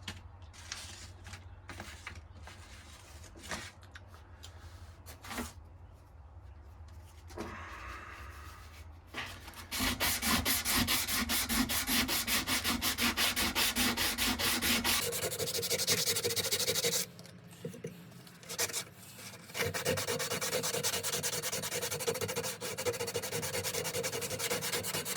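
Steel knife blade being hand-sanded with wet/dry sandpaper in quick, even back-and-forth strokes. The strokes start about ten seconds in after quieter handling noises, stop briefly about two-thirds of the way through, then carry on.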